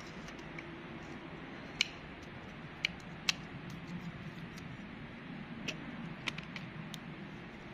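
Smouldering twig-and-tinder fire giving off sparse, sharp crackles and pops, about six in all, over a steady low background rush.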